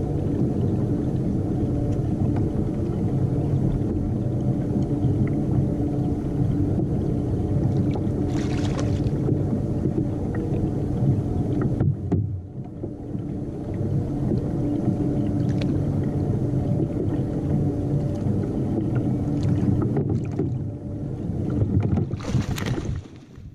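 Steady low rumble of wind and water against a fishing kayak, picked up by a camera mounted on the boat, with a short splash near the end as a hooked kingfish is brought to the surface alongside.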